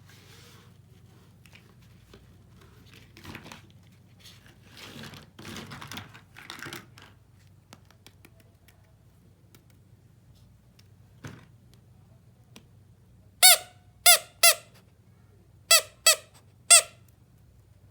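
Soft rustling and clicking of small objects being handled, then six short, loud squeaks in two groups of three.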